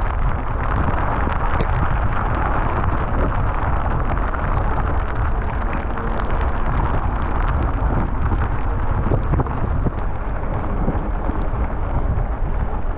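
Steady wind buffeting on the microphone of a moving bicycle, with the hiss of tyres on a wet road while riding in the rain.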